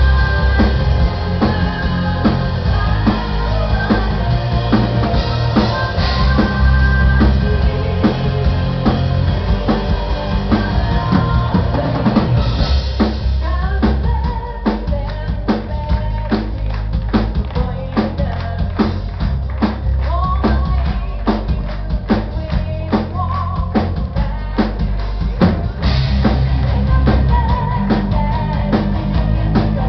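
Symphonic metal band playing live: a busy drum kit, bass and guitars, with a woman singing over them in the second half.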